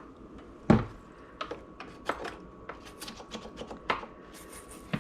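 Irregular light clicks and knocks of objects being handled, the loudest about three-quarters of a second in.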